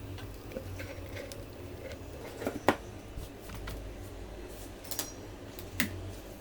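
Several light clicks and knocks, the loudest about two and a half seconds in, over a steady low hum.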